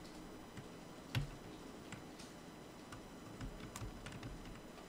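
Quiet scattered clicks of a computer mouse and keyboard keys, about eight separate clicks with the sharpest about a second in.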